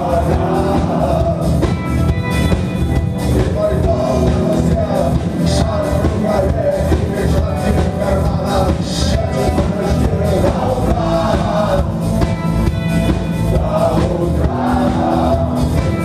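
Live rock band playing loud and steady: drum kit, electric guitars and bass under a sung vocal line.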